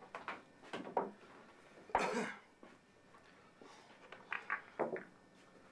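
Billiard balls clacking and knocking against each other and the table as they are gathered and set out, a handful of separate sharp clicks, the loudest about two seconds in.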